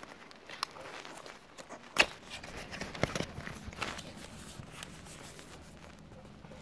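Thin paperboard retail box being opened by hand: card scraping and crackling, with a sharp snap about two seconds in and another about a second later as the flap and lid come free.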